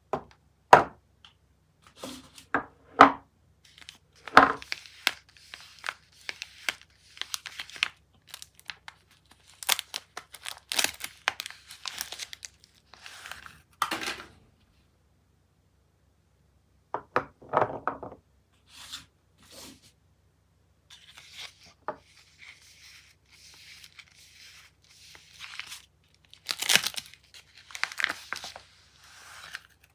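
Soap wrapping being torn open and crinkled by hand, in irregular short spells of rustling with sharp clicks, and a pause of about two seconds halfway through.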